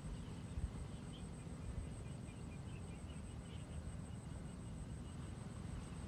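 Quiet outdoor ambience: a low wind rumble with faint high-pitched chirps scattered through it and a faint steady high whine.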